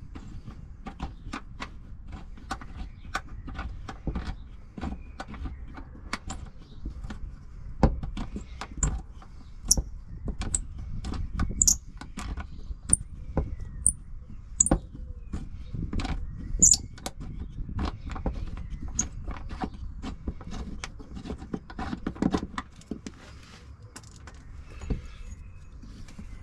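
Hand tools clinking and knocking on metal under a car while the prop shaft hanger bolt is undone, in a steady run of irregular clicks with a few louder knocks.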